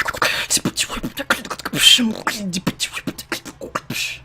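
Human beatboxing: a fast run of mouth-made kick and snare clicks and hissing hi-hat sounds, mixed with short sliding vocal tones. It stops abruptly at the end.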